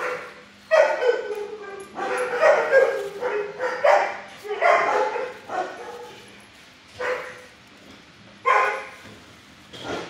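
Dogs barking in a shelter kennel: short runs of barks every second or two, dropping off for a couple of seconds after the middle and picking up again near the end.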